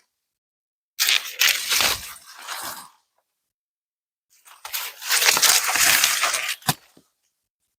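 Dry corn leaves and husks crackling and tearing as ears of corn are handled and picked, in two bursts, with a sharp snap near the end.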